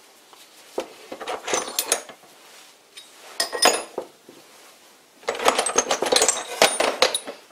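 Loose metal lathe tooling clinking and rattling as it is rummaged through by hand: a few light clinks about a second in, a short group around three and a half seconds, then a busier stretch of clattering from about five seconds until near the end.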